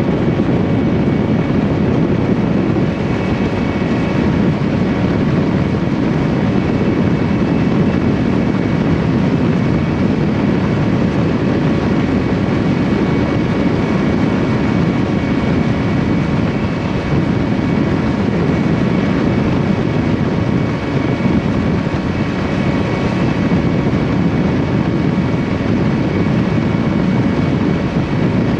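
Outboard motor of a bass boat running steadily at speed, with wind rushing past and the hull running over the water; a few faint steady whining tones sit above the dense rumble.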